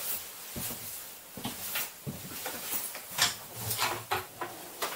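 Footsteps and clothing rustle as a person walks across the floor of an ambulance's patient compartment, with a string of short knocks and clicks, the loudest a little past three seconds in.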